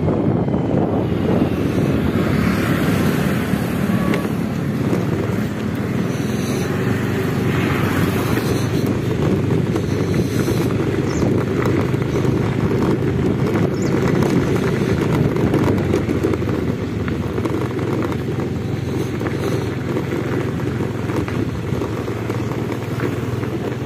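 Steady low rumble of a motor vehicle on the move, with wind buffeting the microphone.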